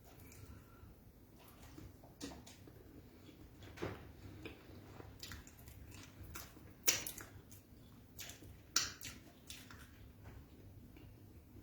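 Close-up chewing and mouth sounds from eating beans and fried plantain: irregular wet smacks and clicks. The sharpest come about seven and nine seconds in.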